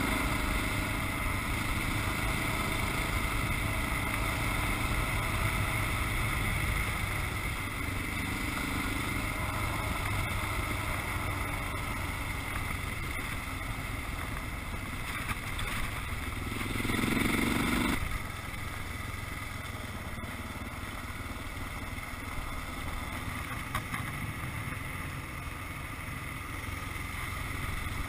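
Dual-sport motorcycle engine running at riding speed, with wind rushing over the microphone. The engine note swells briefly about 17 seconds in, and the sound drops abruptly a second later.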